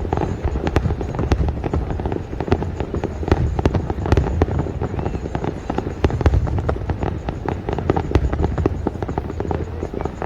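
Fireworks going off: many sharp bangs and crackles in quick succession over a continuous low rumble.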